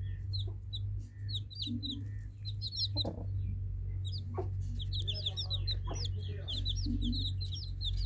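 Newly hatched chicks peeping: many short, high chirps, scattered at first and coming thick and fast in the second half, over a steady low hum.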